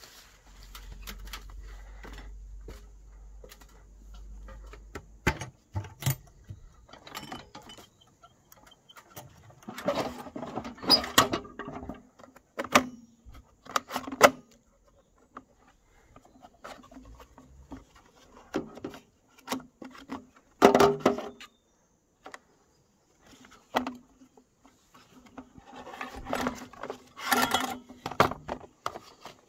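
Handling noises from a Philips Iridium street lantern's plastic housing being opened and its lamp holder worked by gloved hands: irregular clicks, knocks and rubbing rattles, with a low rumble in the first few seconds.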